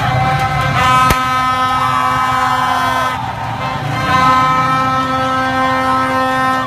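A horn sounds long, steady blasts, breaking off briefly about three seconds in, over street noise of vehicle engines and people shouting. A single sharp crack comes about a second in.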